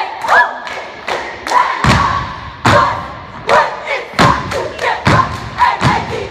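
Step team stomping in heeled shoes on a wooden gym floor: sharp hits in a quick, uneven rhythm, about two to three a second, with short shouted calls between them.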